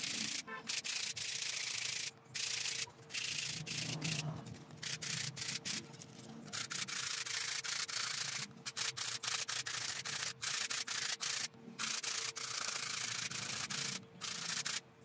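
Hand sanding: the black stone top of a stainless steel ring rubbed against a sheet of sandpaper to smooth it, a scratchy rasp in runs of strokes broken by short pauses. It stops just before the end.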